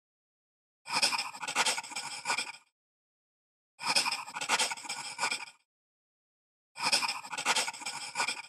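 Pencil scratching across paper as it writes, in three matching spells of about two seconds each, about three seconds apart.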